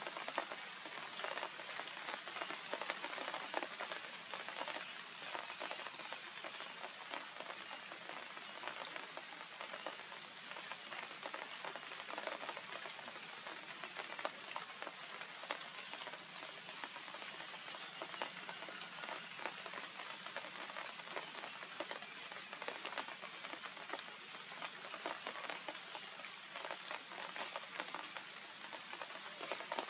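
Steady, dense pattering noise full of tiny ticks, like light rain falling on grass and leaves.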